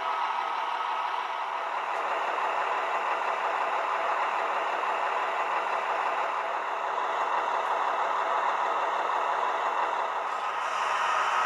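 Sound decoder in a Roco H0 model of a DB class 628.4 diesel railcar, playing a steady diesel engine running sound through the model's small speaker as the train rolls along.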